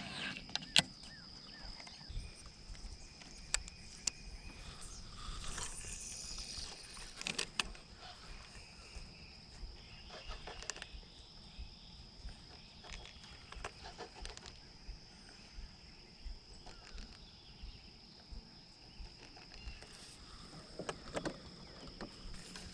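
Quiet outdoor ambience over water: a steady high-pitched insect drone, with scattered small clicks and knocks.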